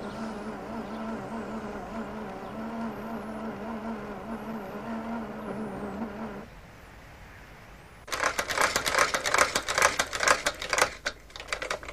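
Drive motor of a motorised trick suitcase running steadily, pulling it along on toothed-belt caterpillar tracks, then stopping about six and a half seconds in. About a second and a half later a rapid, irregular clattering starts and lasts about three seconds.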